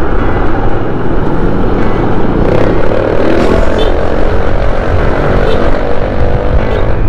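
Wind rumble and engine noise from a motor scooter riding in traffic. From about two and a half seconds in, a steady engine tone rises as it draws alongside and past a truck.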